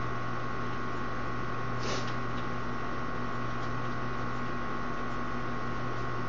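Steady electrical hum with hiss, a few faint steady tones held throughout, and a brief soft noise about two seconds in.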